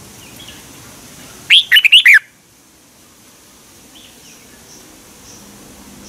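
Red-whiskered bulbul singing one short, loud phrase of quick warbled notes about one and a half seconds in, with a few faint calls before and after.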